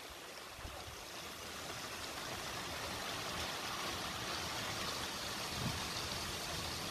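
Heavy rain falling steadily, an even hiss that swells a little over the first couple of seconds.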